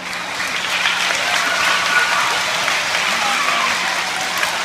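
Audience applauding: the clapping swells at the start and holds steady, with a few voices calling out over it.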